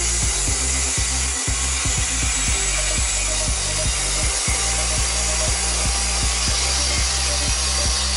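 CC300 diesel locomotive running as it rolls slowly past at close range: a steady low engine hum under hiss, with regular knocks about three or four a second.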